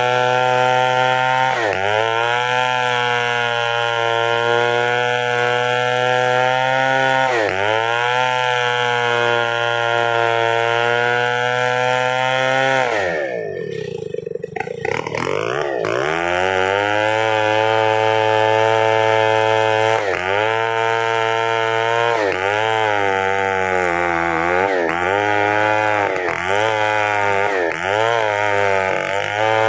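Chainsaw engine running at high revs as it cuts wood, its pitch dipping briefly under load. About halfway through the revs fall away steeply, then rise back to full speed, followed by a run of quick dips.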